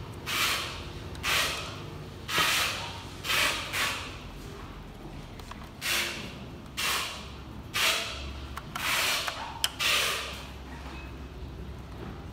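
Hand screwdriver turning small screws in a projector's plastic housing, a short gritty rasp with each twist: about ten of them, roughly one a second, with a brief pause near the middle and a sharp click near the end.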